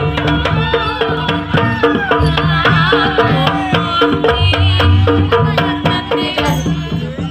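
Jaranan ensemble music: kendang hand drums play a busy, driving rhythm with deep drum pulses, over steady ringing percussion tones and a wavering melodic line.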